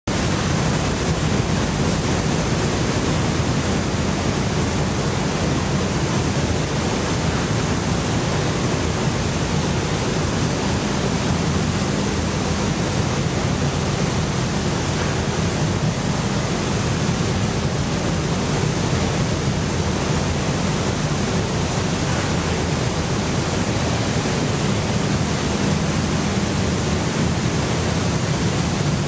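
Steady, loud din of pellet-plant machinery, the milling and pelletizing equipment running continuously: an even rushing noise with a low hum and a faint high whine, no distinct knocks or changes.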